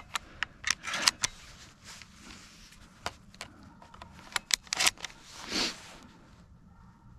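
Handling noise close to the microphone: clothing and gear rustling with a string of sharp clicks and taps, the loudest about a second in and between four and five seconds in, and a short rustle just after.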